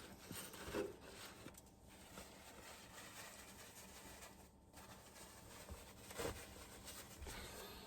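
Faint handling noise: soft rustling and scraping, with a couple of light taps, one about a second in and one near six seconds.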